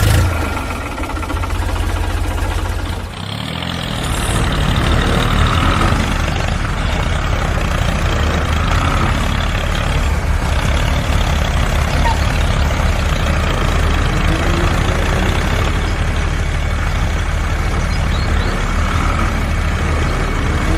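Truck engine running steadily with a low, even rumble. It dips briefly about three seconds in, then runs on a little louder.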